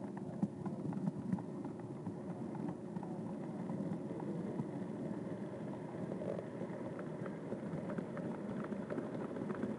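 HO scale model diesel locomotives and freight cars running past on the track: a steady low rumble of motors and wheels, with scattered light clicks of the wheels over the rails.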